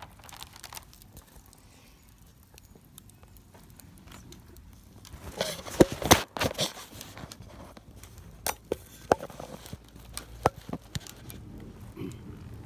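Wood campfire crackling with scattered sharp pops, and a short burst of louder clattering handling noise about halfway through.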